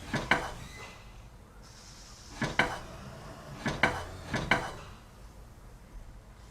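Hard objects knocking and clinking together in four short groups of sharp knocks, mostly in pairs, each with a brief ring, as when tools or hardware are handled at a woodworking bench.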